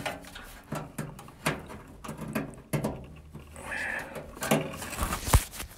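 Gloved hands working inside a gas furnace cabinet: scattered light clicks, taps and rustles as wiring and sheet-metal parts are handled, with one heavier thump about five seconds in.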